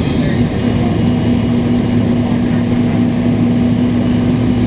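Cummins ISL diesel engine of a 2005 Gillig Phantom transit bus running while the bus is under way, heard from inside the bus, with an exhaust leak colouring its note. A steady drone, with a held tone joining it a little under a second in.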